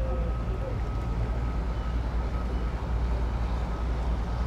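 Steady low rumble of idling outboard boat engines, with a faint steady high whine.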